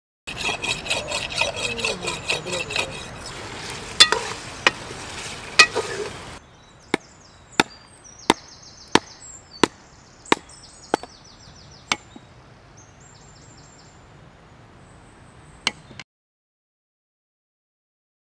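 Chopping: a fast run of strokes for the first few seconds, then single sharp chops about every two-thirds of a second. The chopping stops about 16 seconds in.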